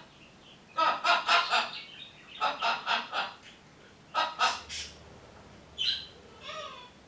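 Macaw calling in three bursts of quick repeated notes, then a shorter call that falls in pitch near the end.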